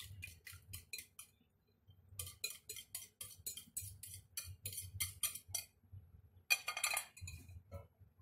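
Spatula scraping batter out of a ceramic mixing bowl in quick repeated strokes, about five a second, with a pause of about a second early on. Near the end there is a short clatter of dishware.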